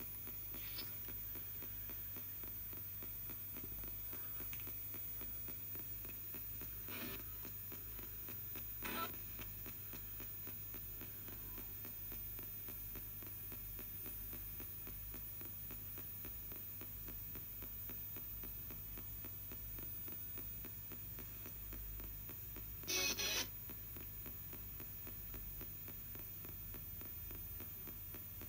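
Spirit box sweeping the AM band: a steady low hum and hiss of static, broken by three brief snatches of radio sound, the last and loudest about three-quarters of the way through.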